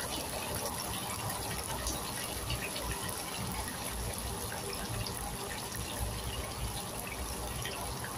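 Chicken wings deep-frying in hot oil in a pan: a steady sizzle dotted with small pops and crackles.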